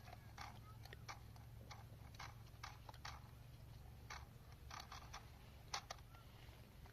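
Faint, irregular clicks and ticks from an old mechanical alarm clock, a few a second and unevenly spaced, over a steady low hum.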